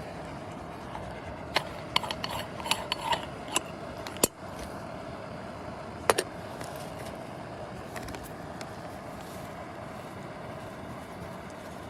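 Backpacking canister stove (MSR PocketRocket) burning with a steady hiss. Over it come a quick series of sharp clinks and knocks between about one and a half and four seconds in, and two more around six seconds in.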